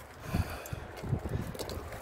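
Footsteps of a person walking fast, soft low thumps about three a second.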